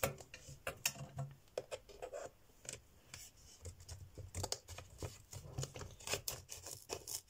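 Small craft scissors snipping at a cardboard sleeve around a plastic box: an irregular run of short sharp snips and clicks, mixed with the box being handled.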